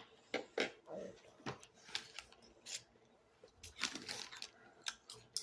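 Irregular sharp clicks and taps of small plastic toy pieces and packaging being handled.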